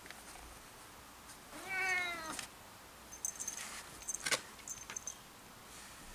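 A domestic cat meows once, about two seconds in, the pitch rising then falling. After it come soft scuffing rustles and light clicks as she rubs against the shoes on the boot tray.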